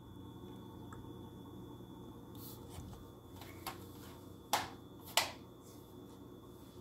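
Quiet room tone with a steady low hum and a thin faint whine, broken by a few light clicks and knocks of things being handled, the two loudest about four and a half and five seconds in.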